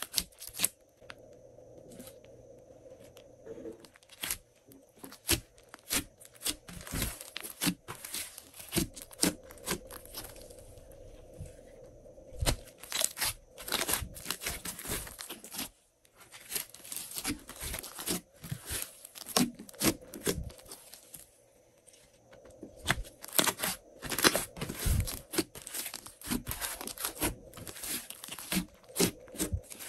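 Hands squeezing and kneading a large mass of glossy slime, giving rapid runs of sticky clicks and pops, with short quieter pauses between handfuls.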